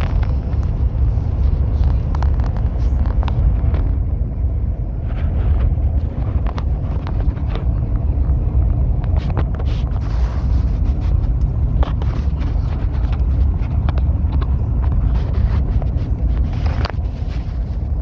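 High-speed train running at speed: a steady, heavy low rumble with scattered faint clicks.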